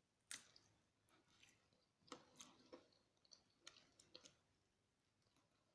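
Faint, scattered mouth clicks and smacks of chewing fried chicken close to the microphone, a dozen or so soft ticks, dying away near the end.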